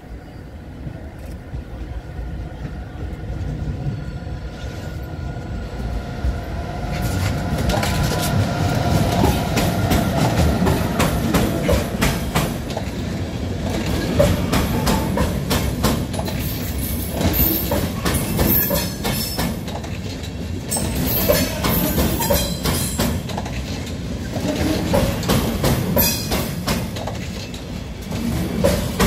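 Deutsche Bahn class 101 electric locomotive hauling an Intercity train of coaches past at close range: steady rumble of wheels on rail with repeated sharp clicks over rail joints and points. It grows louder over the first several seconds as the train nears, with a thin steady whine during the approach.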